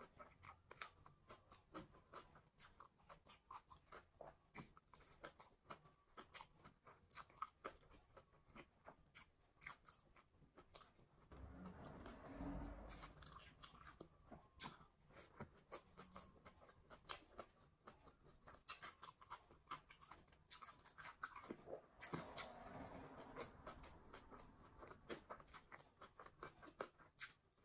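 Close-miked chewing of fried rice and cabbage salad eaten by hand: a steady run of wet mouth clicks and smacks, with some crunch. Two stretches of louder, low, muffled sound come in, about halfway through and again near the twenty-two-second mark.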